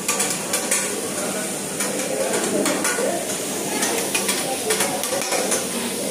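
Long metal spatulas scraping and clacking across a large round flat-top griddle as food sizzles on it, in many short strokes.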